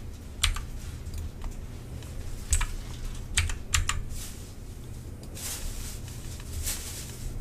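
A handful of separate computer keyboard key presses, single clacks with a quick pair near the middle, over a low steady hum.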